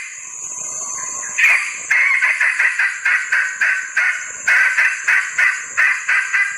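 Junglefowl hen calling: a rapid run of short repeated notes, about three a second, begins a little over a second in over a steady high insect drone. It is a hen in breeding condition calling to males, used as a lure call.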